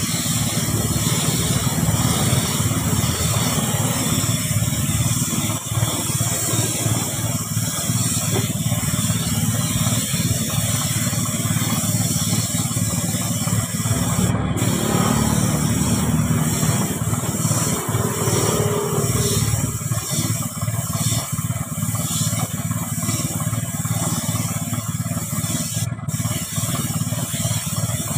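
Gravity-feed paint spray gun hissing steadily as it sprays paint onto a car bumper, the hiss breaking off for a moment about halfway through and again near the end, over a steady low rumble.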